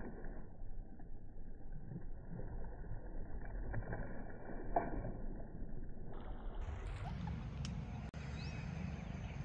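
Water splashing and churning as a snakehead murrel strikes and thrashes at a topwater frog lure, heard dull and muffled with a few sharp knocks. About six seconds in the sound opens out to a fuller, clearer wash of water and outdoor air, with a couple of faint bird chirps.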